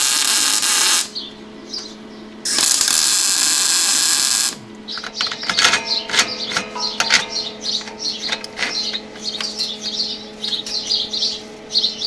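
Electric arc welding crackling in two bursts, the first about a second and a half, the second about two seconds. Then come clicks and clinks of metal parts being handled over a steady hum, with birds chirping.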